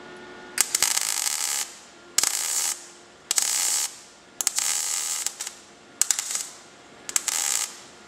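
MIG welding arc crackling on steel car-body sheet metal, laid in six short bursts of about half a second to a second each with brief pauses between, welding vertical-up to build the seam on a patch panel.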